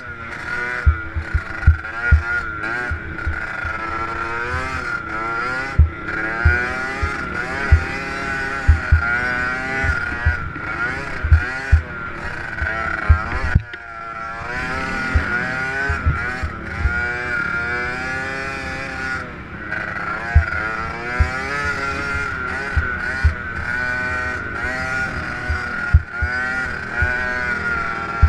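Small off-road motorcycle engine revving up and down repeatedly as it is ridden around a dirt track, with short low thumps throughout.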